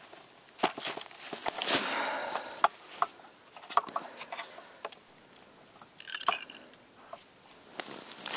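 Footsteps crunching irregularly on frozen, partly snow-covered ground, with sharp crunches and clicks. A brief higher-pitched squeak comes about six seconds in.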